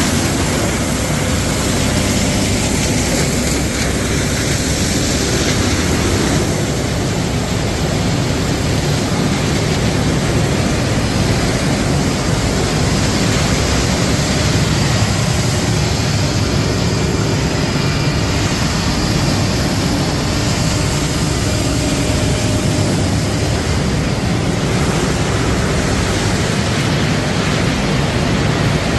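Steady, dense noise of wood-processing machinery running, such as a wood crusher and a rotary drum dryer with its burner fan.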